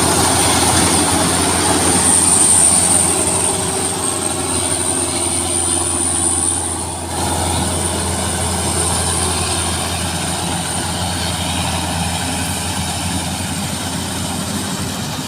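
Rice combine harvesters running steadily as they cut and thresh, a constant engine and machinery drone with a high whine above it, briefly quieter about halfway through.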